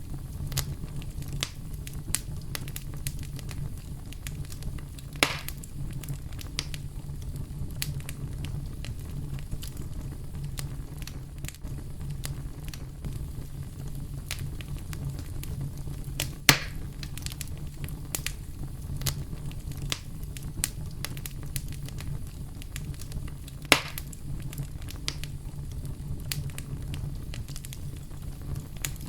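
Campfire crackling, with many small pops throughout and three louder snaps: about 5 s in, about halfway, and about 24 s in. Under it runs a steady, low brown-noise rumble.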